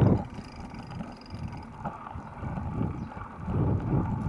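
Wind buffeting the microphone of an action camera on a moving bicycle, an uneven low rumble mixed with tyre and road noise, swelling again near the end.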